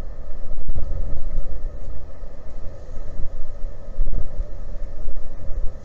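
Wind buffeting an outdoor microphone in gusts, a rumble that swells and drops every second or so, over a steady hum.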